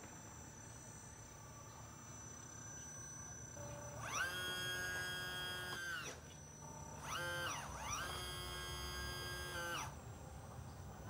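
Electric motor of a radio-controlled model whining: twice it spools up quickly, holds a steady pitch for a couple of seconds, then winds down, with a faint high steady whine before the first run.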